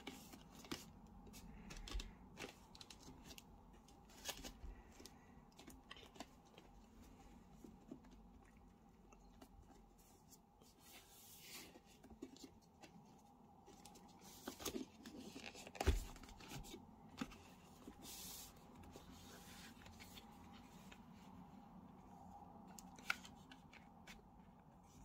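Faint handling of cardboard Blu-ray digipaks and their sleeve: light rustling and sliding with scattered small clicks and brief swishes, and one louder bump about two-thirds of the way through.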